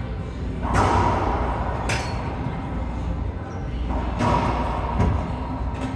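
Racquetball rally: about four sharp cracks of the ball striking racquets and the court walls, each followed by a short echo in the enclosed court.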